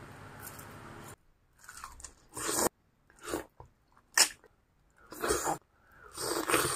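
Close-up eating sounds: a woman biting and chewing skewered fried cilor (tapioca-and-egg snack) with sauce, heard as separate short bites and chews, the sharpest about four seconds in. The first second holds a steady low tone.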